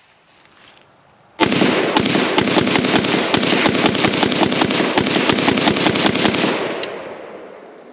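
A Zastava M77-PS .308 semi-automatic rifle fired in a rapid string, about five to six shots a second for roughly five seconds, starting about a second and a half in. The echoes fade out after the last shot.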